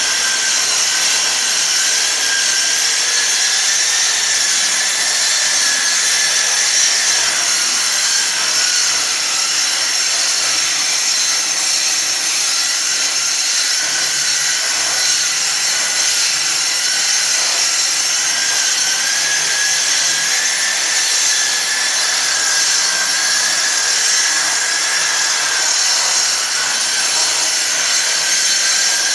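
Handheld angle grinder with a sanding disc running continuously while grinding a terrazzo floor: a loud, steady hiss of the disc on the stone over a motor whine that drifts slightly in pitch.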